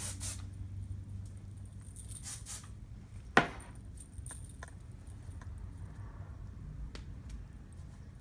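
Short hisses of hairspray being sprayed, then a single sharp knock about three seconds in, followed by a few faint clicks.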